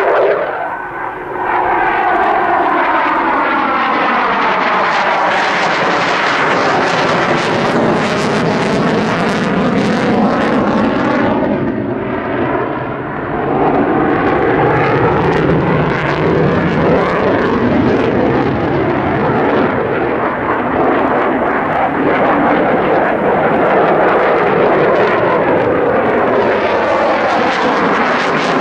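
Loud, continuous jet noise from a JASDF F-15 fighter's twin turbofan engines as it flies display manoeuvres. Its pitch sweeps down and then up as the jet passes and turns, and the noise dips briefly about a second in and again about halfway.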